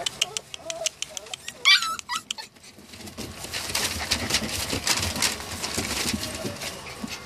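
Samoyed and Siberian Husky puppies whimpering, with one loud high, wavering squeal about 1.7 seconds in, over the steady scratching and rustling of their paws on newspaper.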